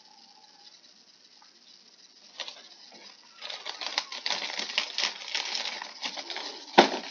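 Clear plastic packaging crinkling and crackling as it is pulled off a figure, mostly in the second half, ending with one sharp snap near the end.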